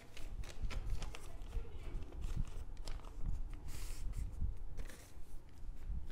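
Sheets of paper rustling and sliding as they are moved aside and a fresh blank sheet is laid on a textbook, with small taps and knocks of handling. There is a longer rustle about four seconds in.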